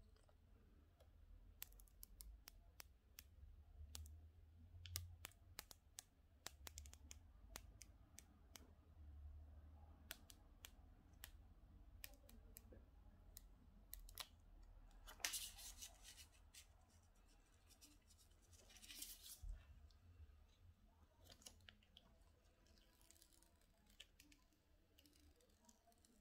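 Faint crinkling and clicking of the thin plastic protective film being peeled off a new iPhone X, with many scattered small clicks and two longer rustling peels a little past halfway.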